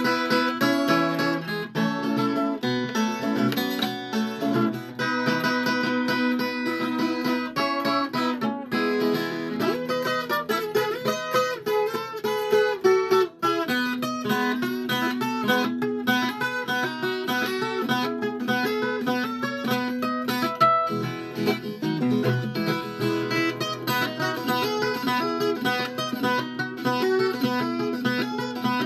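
Viola caipira, the Brazilian ten-string folk guitar, played solo: quick plucked melodic runs over ringing sustained low notes, steady throughout.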